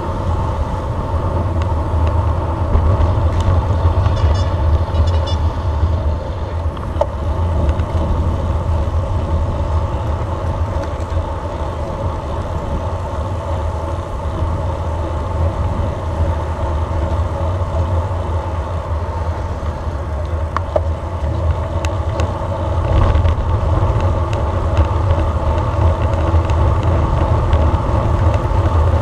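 Wind rumbling on the microphone of a camera carried on a moving road bike, with steady road noise underneath.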